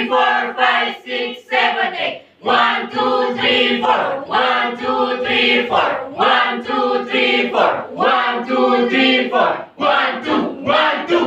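A group of students singing a yel-yel cheer song together in unison, in phrases with short breaks about two seconds in and again near the end.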